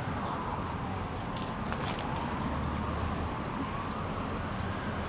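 Emergency-vehicle siren wailing slowly up and down, faint beneath steady city traffic noise.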